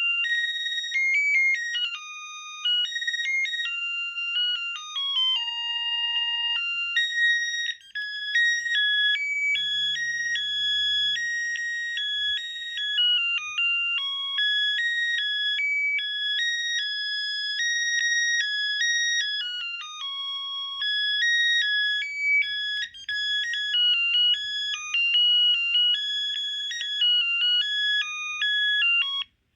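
Panasonic KX-TGBA20 cordless phone handset playing its ringtone melodies: a continuous run of high-pitched electronic notes, several at once, with a brief break about eight seconds in.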